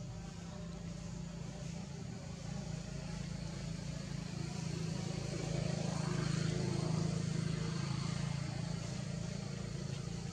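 Steady low engine hum that grows louder around the middle and eases off again toward the end.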